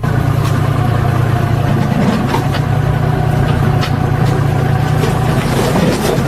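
An engine or machine running steadily at a constant speed, with a low, even hum and a few faint clicks.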